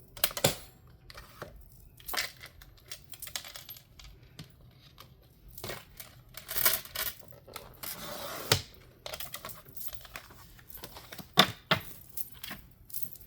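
Thick cover paper being handled and cut on a paper trimmer: scattered clicks and taps of sheets and trimmer, a longer scraping stretch about eight seconds in, and two sharp clicks near the end.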